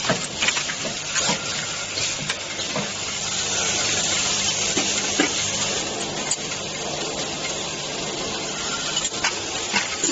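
Iron butt hinge assembly machine running: a steady hiss with scattered sharp metallic clicks, more of them near the start and end, and a low steady hum through the middle.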